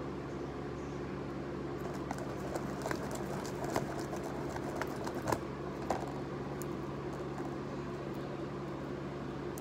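Steady mechanical hum in the room, with scattered light clicks and taps as clear slime is stretched and worked in a plastic tub; the taps cluster in the middle, the sharpest about five seconds in.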